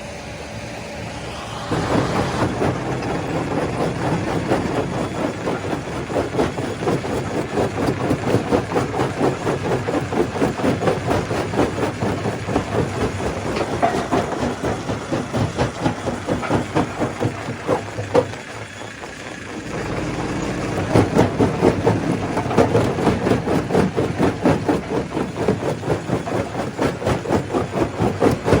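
Stone crusher running and crushing rock: a dense, rapid, rhythmic clatter that starts about two seconds in, drops away briefly near the middle and then picks up again.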